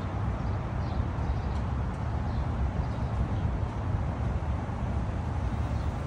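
Outdoor ambience: a steady low rumble, with a few faint high chirps in the first couple of seconds.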